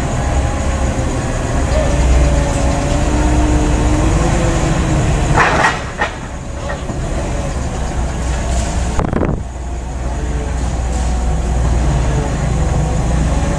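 Diesel forklift engines running with a steady low rumble. Two short sharp noises cut through it, about five and a half seconds in and again about nine seconds in.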